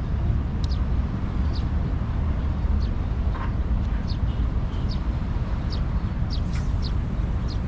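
Seaside outdoor ambience: a steady low rumble with short, high chirps about once a second, and a brief swish about six and a half seconds in as a spinning rod is cast.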